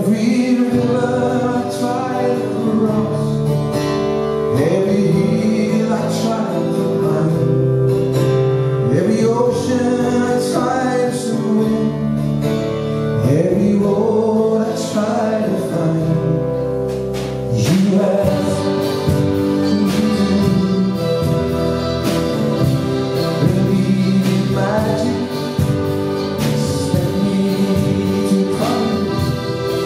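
A small band playing a tune together: accordion, acoustic guitar, violin, electric bass and a small drum kit, with sustained melody notes that slide up into pitch again and again.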